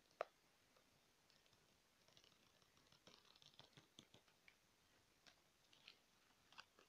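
Faint fingernail tapping and scratching on the cover of a spiral-bound notebook held close to the microphone: one sharp tap just after the start, a run of quick soft scratches and taps a couple of seconds in, then a few separate taps near the end.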